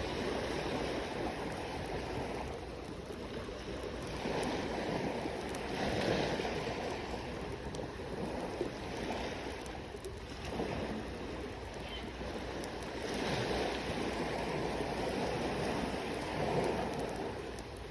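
Small sea waves washing onto the shore, swelling and falling every few seconds, with a few faint crackles from a wood campfire.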